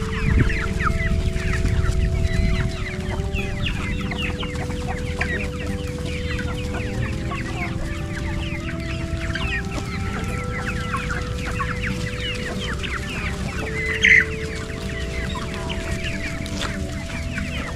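A flock of free-range chickens clucking and peeping continuously as they peck at scattered rice, with one louder call late on.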